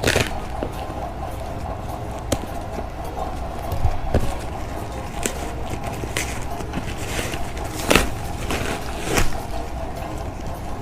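Cardboard box and wrapping being opened by hand: irregular rustling, scraping and sharp tearing or knocking noises, the loudest right at the start and about eight seconds in, with a steady low hum underneath.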